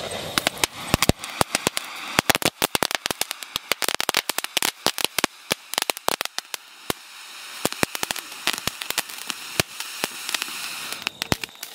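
Diwali pencil firework burning, spraying sparks with a steady hiss and rapid crackling pops. The crackle is densest a few seconds in and thins out toward the end.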